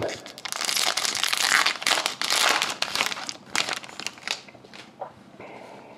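A wrapper on a pack of hockey trading cards being torn open and crinkled by hand, a dense crackling for about four seconds that quietens near the end.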